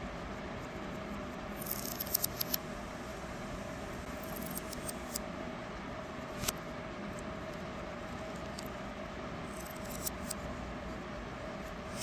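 Small plastic clicks and rattles of LEGO Technic pins and beams being handled, picked up and pushed together, in a few short clusters, the sharpest about six and a half seconds in, over a steady background hum.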